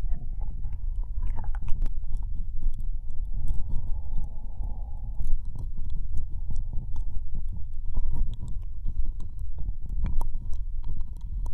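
Close binaural ear-licking: many wet tongue and mouth clicks and smacks against the ear of a microphone, over a continuous low rumble.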